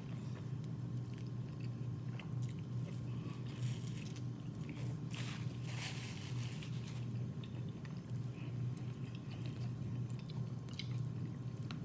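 Close-miked chewing and biting of corn on the cob: scattered wet bites and crunches, over a steady low hum.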